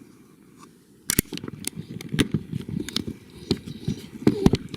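After about a second of quiet, a string of irregular sharp clicks and light knocks.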